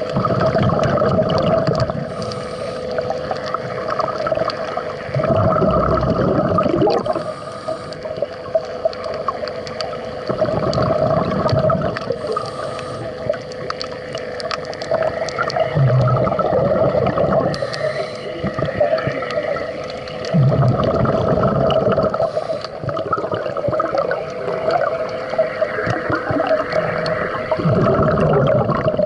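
Scuba diver breathing underwater through a regulator: a short hiss on each inhale, then a longer rush of exhaled bubbles, repeating about every five seconds over a steady hum.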